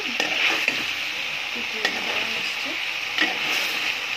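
Chicken curry in a thick gravy sizzling in a pan as it is stirred, with a steady hiss and a few sharp clicks of the stirring utensil against the pan.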